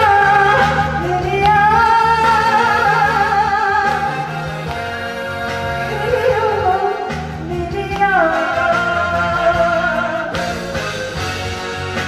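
Woman singing a slow Korean song live through a headset microphone over a backing track with a steady bass line, holding long wavering notes, with one note sliding down about eight seconds in.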